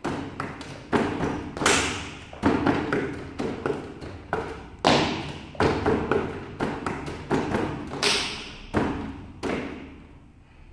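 Wooden kung-fu training dummy struck by forearms and hands in a drill: a rapid, uneven run of sharp wooden knocks, about two or three a second, that stops shortly before the end.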